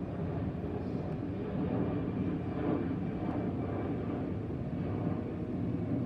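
Airbus A320-216's CFM56 turbofan engines heard from the ground as the airliner flies over: a steady jet rumble with no distinct changes.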